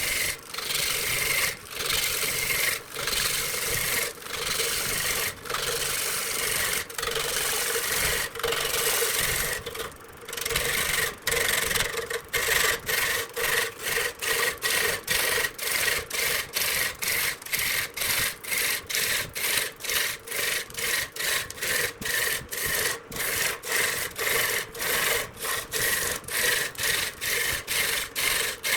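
Repeated back-and-forth scraping strokes of a hand tool on wood, like sawing or rasping. About one stroke a second at first, quickening to about two a second partway through.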